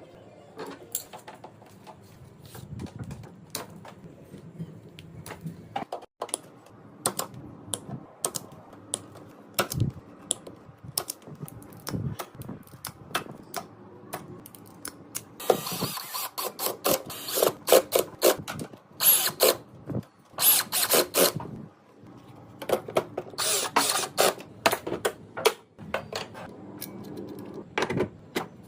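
Tools at work on an air-conditioner installation: scattered clicks and knocks, with several bursts of rapid, rattling strikes in the second half.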